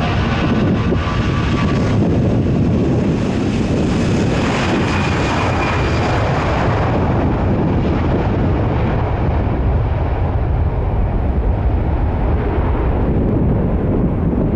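Airliner engines, loud as the plane passes; the higher hiss of the engines fades over the second half as it moves away, leaving a low rumble.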